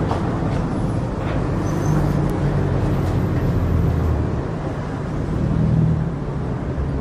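Steady rumble of road traffic, swelling louder twice as vehicles go by.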